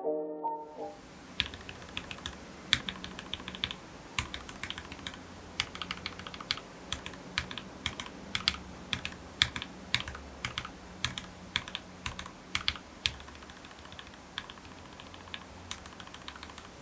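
Typing on a mechanical keyboard fitted with lubed Everglide Aqua King linear switches, in a sound test of switch films: irregular keystroke clacks, several a second, with short pauses.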